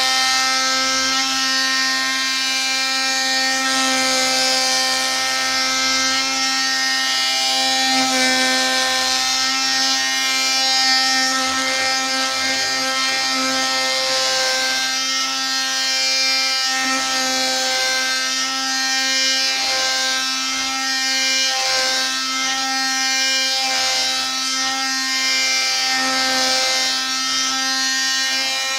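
Craftsman V20 cordless oscillating tool running with a sanding pad pressed against poplar wood: a steady whine with many overtones over the scratchy rasp of sanding.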